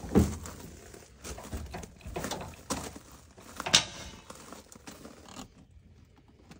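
Metal trailer-hitch hardware being handled by hand: a loud clank just after the start, scattered small clicks and rattles, and a sharp click a little under four seconds in as the ball coupler's latch is worked.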